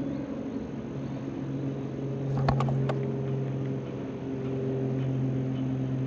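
A steady low mechanical hum, like a motor running, with a few sharp clicks about two and a half seconds in.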